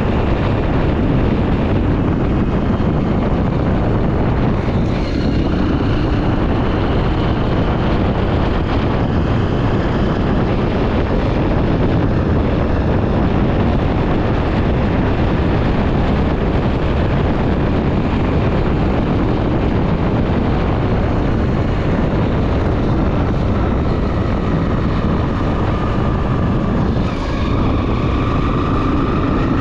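Honda XR 250 Tornado single-cylinder motorcycle running on the road, with steady heavy wind rush on the microphone.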